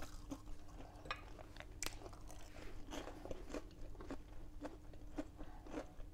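People chewing crunchy oven-baked breaded prawns and chicken nuggets with a panko-and-crushed-crisps coating: faint, irregular crisp crunches as the coating breaks between the teeth.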